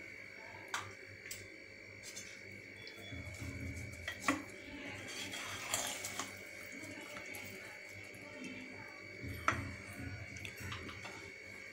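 A ladle stirring a wet rice and masala mix in an aluminium pressure cooker, with a few sharp clinks against the pot and a stretch of scraping in the middle, over a steady high background whine.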